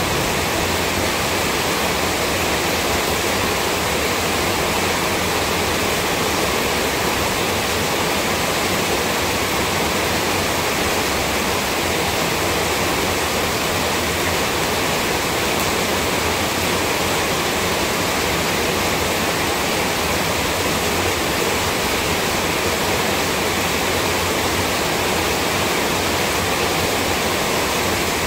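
A loud, steady rushing noise that stays even and unchanging throughout, with no speech heard through it.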